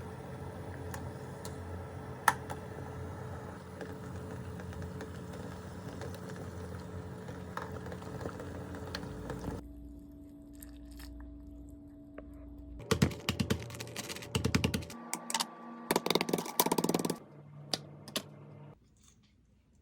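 Quick runs of small clicks, like typing on a keyboard, over a steady low hum that drops away about halfway through.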